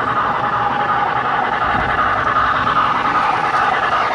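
Several O-gauge model trains running on three-rail metal track: a steady rolling whir of metal wheels and motors from a locomotive and freight cars passing close by.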